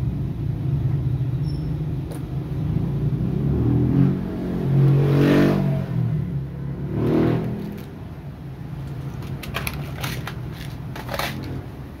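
Passing motor traffic: two vehicles swell up and fade away, about five and seven seconds in, over a steady low engine hum. Scattered light clicks come near the end.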